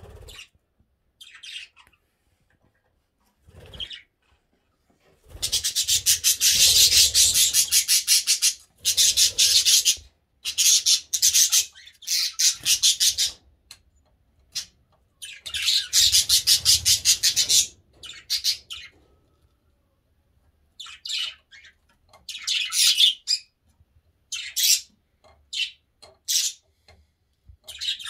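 Budgerigars chattering and warbling in repeated bursts of one to three seconds, with short gaps between; the longest, loudest bursts come in the first half, shorter ones toward the end.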